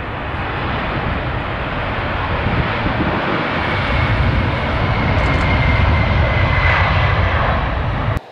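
Boeing 747-400's four turbofan engines at takeoff thrust during the takeoff roll and lift-off: a steady jet roar growing louder, with a faint high whine over it. It cuts off suddenly near the end.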